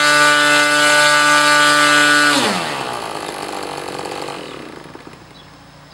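O.S. 120AX Special two-stroke glow engine swinging a 16x8 propeller, running steadily at full throttle. About two and a half seconds in, its pitch drops sharply as it winds down, and the sound fades away.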